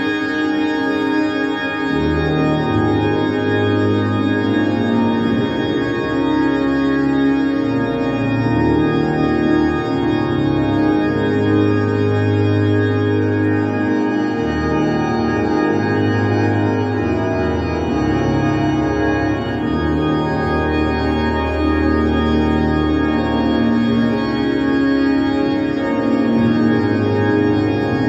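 Electric organ improvisation in liturgical style: full sustained chords held over a bass line that moves every second or two and drops out briefly a few times.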